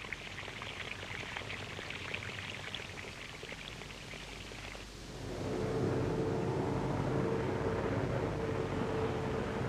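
A heavy vehicle engine comes in about five seconds in and runs steadily: a low hum with a steady tone above it. Before that there is only a faint hiss with light crackling.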